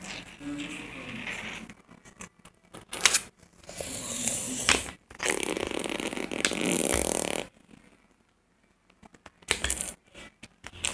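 Rustling and handling noise of a plastic brick-built model being turned and moved close to the microphone, with a few sharp clicks and a short quiet gap near the end.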